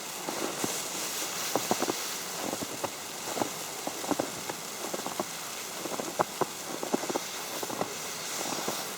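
Falling snow pattering on an umbrella: many small irregular taps over a steady hiss.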